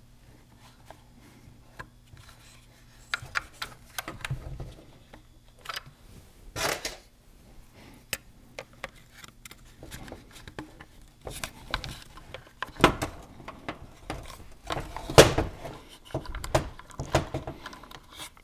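Scattered clicks, taps and knocks of hands and small tools working on the plastic and metal parts of a partly disassembled Husqvarna 550 XP chainsaw. A faint low hum runs under the first half and then stops.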